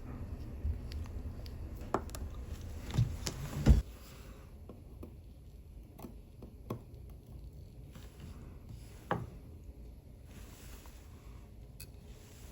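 Small clicks and taps of watchmaker's hand tools handling a watch movement and being set down on the bench, with a louder knock a little under four seconds in.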